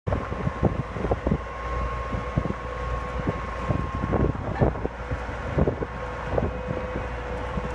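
Tractor engine running steadily with the hydraulic drive of a ditching implement, a thin steady whine over a low rumble, and wind buffeting the microphone in irregular knocks.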